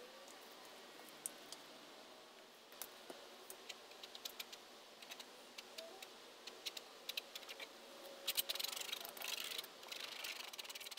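Palette knife working paint on a stretched canvas: scattered light clicks and taps as the blade touches down, then a denser scratchy scraping in the last few seconds as paint is spread.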